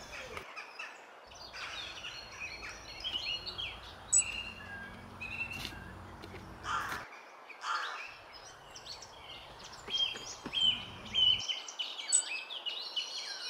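Birds chirping outdoors, many short rising and falling calls overlapping, with two lower calls close together about seven seconds in.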